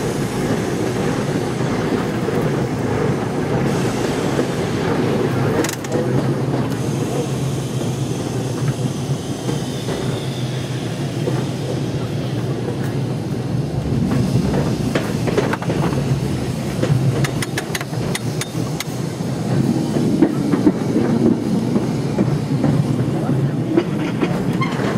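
Heritage electric tram running along its track, heard from the open top deck: a steady rumble of steel wheels on the rails, with a run of sharp clicks from the wheels a little past the middle.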